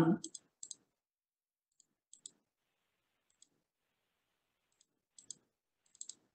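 Faint, irregular small clicks, about half a dozen spread over a few seconds of otherwise near-quiet, after the last syllable of a spoken word at the very start.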